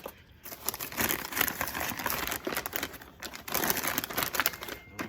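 Packaging crinkling as it is handled, in two spells with a short pause between them about three seconds in.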